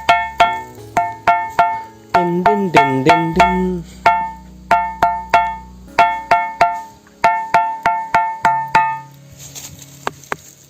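A ringing rock struck again and again with a hand-held stone, giving clear bell-like tones that ring on briefly after each strike. The taps mostly come in quick groups of two or three, and the pitch changes from one strike to another.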